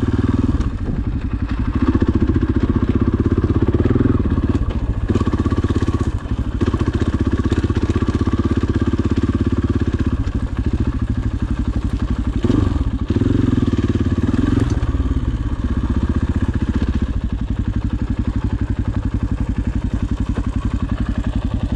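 Single-cylinder four-stroke dirt bike engine running at trail speed, the engine note dipping and picking up a few times as the throttle is eased off and opened again.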